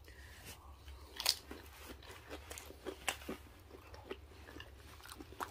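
A person chewing a mouthful of nachos, the tortilla chips crunching in a run of irregular crisp crunches, the loudest about a second and three seconds in.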